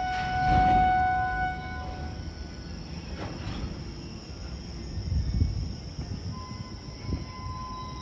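Horn of an approaching WAP-7 electric locomotive sounding one long steady note, which fades out about a second and a half in. A fainter, higher steady horn note starts about six seconds in, over a low rumble.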